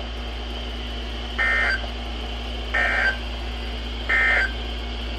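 Three short bursts of NOAA Weather Radio SAME digital data, warbling two-tone squawks about 1.3 s apart: the end-of-message code that closes an Emergency Alert System severe thunderstorm warning. A steady low hum and faint hiss sit underneath.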